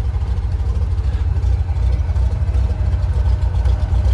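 1961 Cessna 182 Skylane's Continental O-470 six-cylinder engine and propeller idling steadily, heard from inside the cabin as a loud, even, low pulsing rumble.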